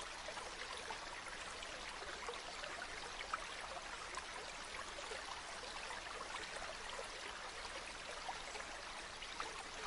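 Mountain waterfall: water falling and splashing in a steady rush with little low rumble, and many small splashes and droplets flecking through it.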